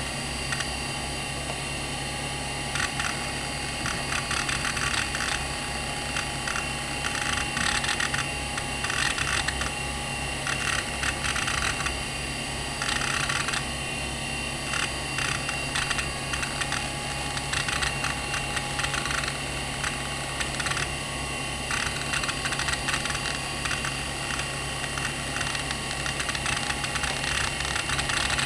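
Conner CP30174E 170MB hard drive spinning with a steady whine over a low hum, its heads seeking in irregular bursts of rapid clicking as Windows 95 boots from it. The spindle bearings are in good health.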